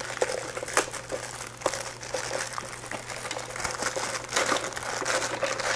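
Graham cracker packaging crinkling as it is handled and the crackers are pulled out, in many short, irregular crackles.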